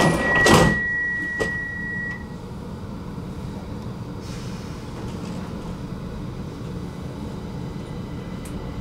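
Stockholm metro (tunnelbana) train doors closing: a steady high warning beep sounds while the sliding doors shut with a thud about half a second in. The beep stops at about two seconds, a click follows, and then the train's low steady rumble carries on.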